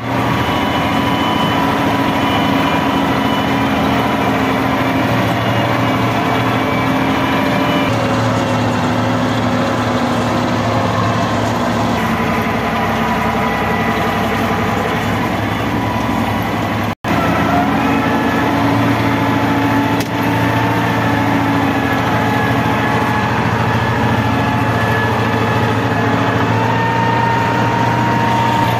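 Tractor diesel engine running steadily under load as the tractor drives through mud, heard from inside the cab. The sound cuts out for a split second about halfway through.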